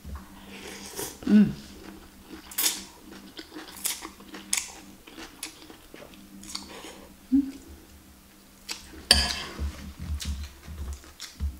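Close-up eating sounds: noodles slurped and chewed, with a metal fork and spoon clicking against a glass bowl and a couple of short hums from the eater. A louder burst of rustling noise comes about nine seconds in.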